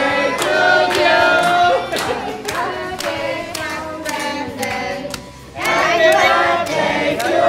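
A group of adults and children singing a birthday song together, with hand clapping in time. The singing dips briefly about five seconds in, then picks up again louder.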